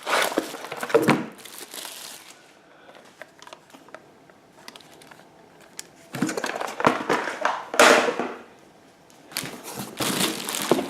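Packaging crinkling and rustling in irregular bursts as gear is handled during an unboxing, with a quieter stretch in the middle.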